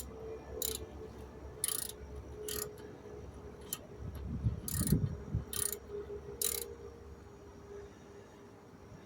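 Hand tool worked on the truck's brake assembly: a series of short sharp metallic clicks, about one a second, with a low thump about halfway.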